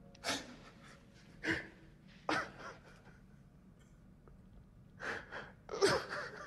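A man gasping for breath: about five short, ragged breaths at uneven intervals, with a longer pause before the last two.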